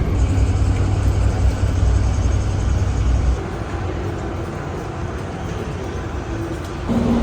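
Low, steady rumble of a vehicle running, which drops away sharply about three seconds in and leaves a quieter noise.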